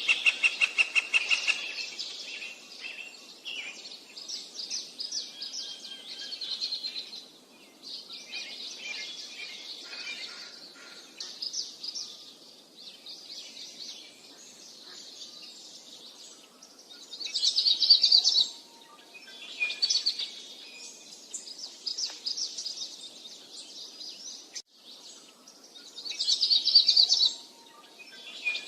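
Wild songbirds singing: a string of short, high-pitched, twittering song phrases, with louder bursts about two-thirds of the way through and again near the end. It opens with a rapid, evenly pulsed call that stops after about a second and a half.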